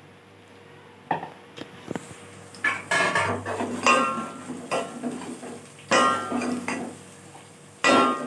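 Steel ladle scraping and clinking against the sides and bottom of an aluminium cooking pot as a thick yogurt and spice mixture is stirred. It comes in repeated bouts of scraping and clattering, starting about a second in.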